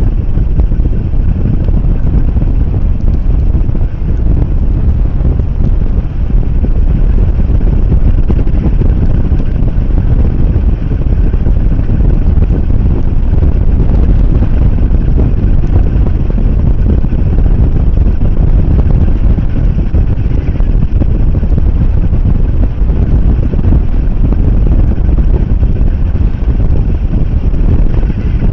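Wind on the microphone of an outdoor treetop nest camera: a loud, steady low rumble that runs without a break.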